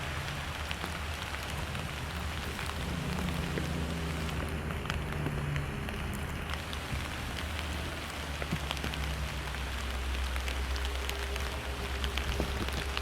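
Steady rain falling, with fine drops pattering close by, over a low steady rumble.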